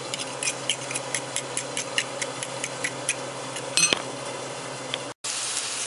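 Fork beating eggs in a ceramic bowl, the tines clicking against the bowl about five times a second before stopping about three seconds in. Near the end, after a brief break, green bell pepper, hot pepper and onion sizzle in a frying pan.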